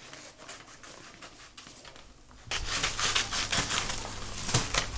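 Glossy paper New Year decorations being handled and cut with scissors: soft rustling at first, then from about halfway a louder run of crinkling and snipping.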